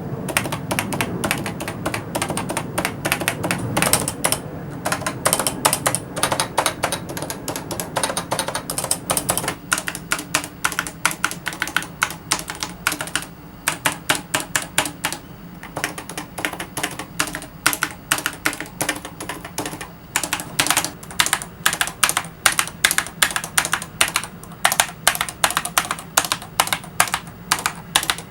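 Fast, continuous typing on a Topre Realforce 104UG high-profile keyboard with Topre capacitive switches, a steady stream of keystrokes broken by a few short pauses.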